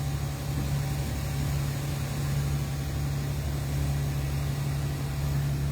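Boat engine running steadily under way, a constant low drone with noise over it.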